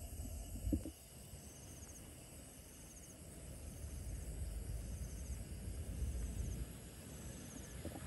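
Faint insect chirps, short pulses repeating about every second and a half, over a low rumble, with a brief bump under a second in.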